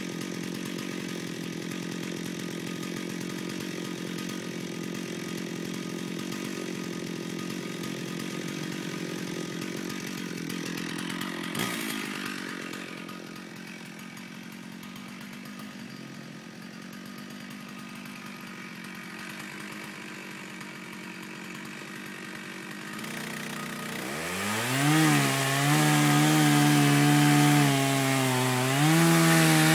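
Stihl chainsaw running steadily, dropping quieter after a sharp knock about twelve seconds in. Near the end it revs up loudly and cuts into wood, its pitch sagging and recovering under load.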